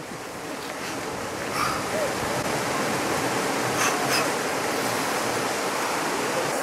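Steady rush of running water from a river below the bridge: an even hiss that grows a little louder about a second and a half in.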